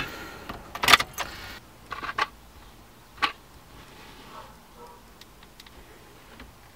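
A few sharp clicks and knocks, loudest about a second in, then fainter ticks, from hands working a car stereo head unit. The newly wired speaker gives no sound.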